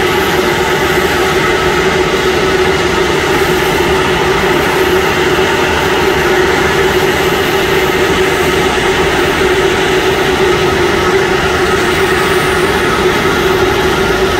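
Steady jet aircraft noise on an airport apron: an unchanging rush of noise carrying a constant mid-pitched whine.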